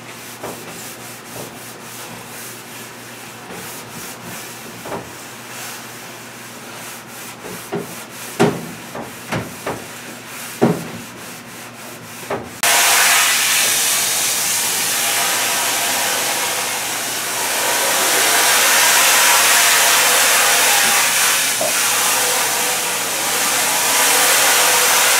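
Gloved hands scrubbing a mat against a stainless steel sink, with a few sharp knocks. About halfway through, a pre-rinse spray faucet comes on suddenly with a loud, steady hiss of water spraying onto the mat.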